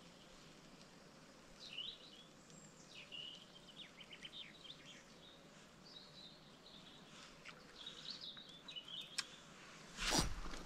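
Songbirds singing, a run of quick chirps and short trills over a quiet background; near the end a brief, louder rush of noise.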